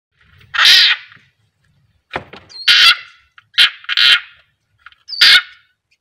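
Frog screaming in distress at a snake: five short, harsh, high-pitched screams, each under half a second, spaced a second or so apart.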